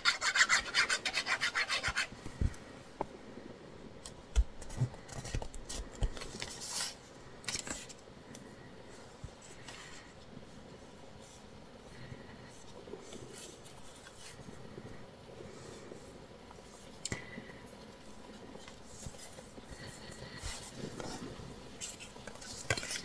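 Paper being handled for a collage: a quick run of rasping strokes for about two seconds, then soft rustling and a few light taps as paper pieces and lace are laid and pressed onto the page.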